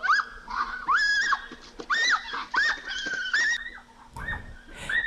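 Chicken squawking over and over, a string of short calls that rise and then hold, about two a second.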